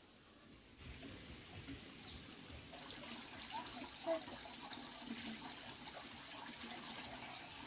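Hot oil sizzling faintly in a wok as dough cakes fry, a steady hiss that comes up about a second in.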